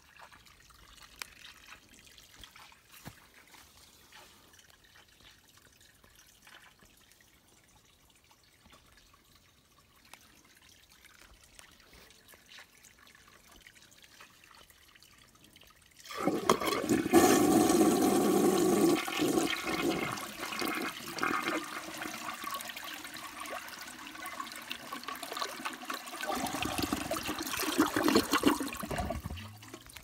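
1969 American-Standard Glenwall toilet flushing: after a quiet first half, a sudden rush of water starts about halfway through. It is loudest for the first few seconds, keeps running, swells again near the end, then cuts off.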